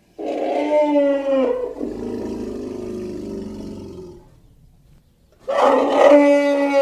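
Eurasian brown bear roaring twice. The first is a loud roar that falls slightly in pitch and trails off into a lower, rumbling growl. A second roar starts about five and a half seconds in.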